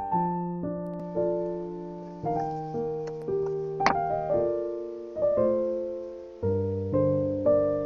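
Background piano music: slow notes and chords, each struck and left to die away, about two a second, with one short sharp accent about four seconds in.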